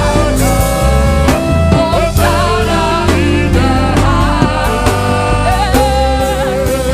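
Gospel worship music: voices singing held, bending lines over a band with bass and drums.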